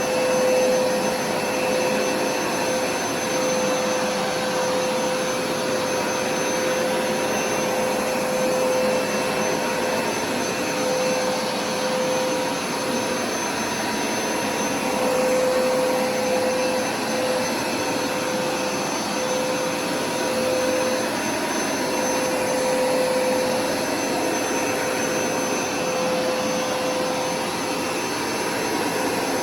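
Hoover carpet-cleaning machine running steadily: the motor's suction rush with a steady hum on top that fades out briefly now and then.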